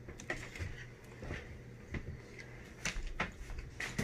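Scattered light clicks and knocks of forks on paper plates and a wooden table, about one a second.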